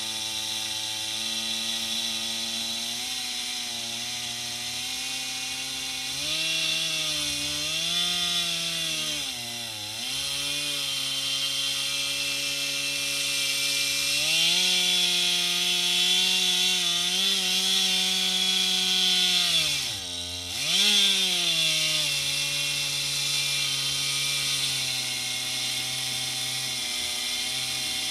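Stihl 441 two-stroke chainsaw on an Alaskan chainsaw mill ripping through a log, its engine note and cutting noise rising and falling with the load. The pitch sags briefly about ten seconds in, and drops sharply and recovers about twenty seconds in.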